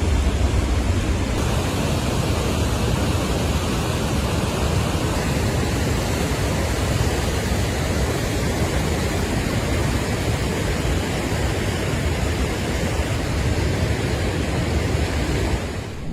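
Flash-flood torrent of muddy water rushing steadily, a loud unbroken roar heaviest in the low end.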